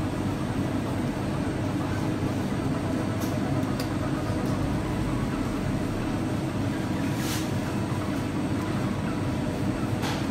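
Steady machine drone with a faint constant hum, of the kind made by a bakery's fan or oven burner, with a few brief hissy ticks over it.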